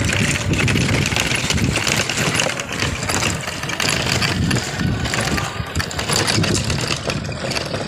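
Rickshaw riding over a rough, broken lane: a steady, loud mechanical rattle and running noise.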